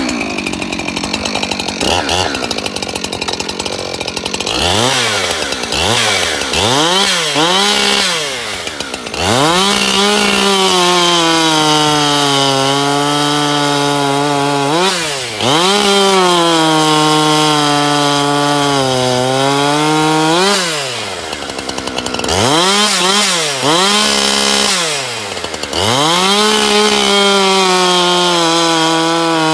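Husqvarna 365 X-Torque 71cc two-stroke chainsaw, brand new and running on its factory carburettor settings, idling and then revved. It gives several quick throttle blips, then is held at high revs for several seconds at a time, falling back to idle in between.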